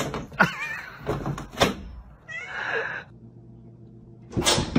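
Domestic cat meowing twice, short wavering calls, among a few sharp knocks, with a loud thump near the end.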